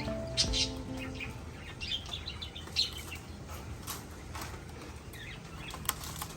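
Pet parrot giving short, scattered chirps and squeaks, with a few sharp clicks between them. The tail end of a piece of music dies away in the first second.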